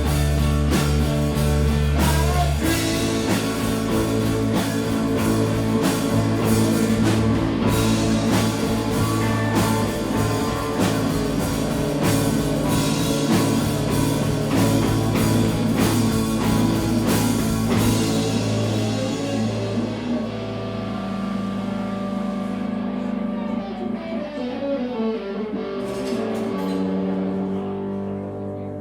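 Live rock band playing an instrumental passage with electric guitars, bass and drum kit. About two-thirds of the way through the drums stop, leaving guitar and bass notes ringing, with a descending guitar slide, and the sound fades as the song closes.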